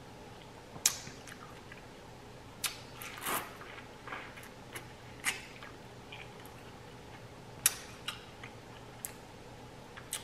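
Close-miked chewing of fruit, with irregular wet smacks and sharp mouth clicks every second or so; the sharpest clicks come about a second in and near eight seconds.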